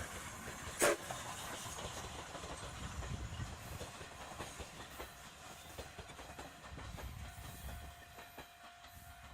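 Steam-hauled train rolling past with a low rumble, its wheels clicking over the rail joints, and one sharp loud clack about a second in. A faint steady tone comes in near the end.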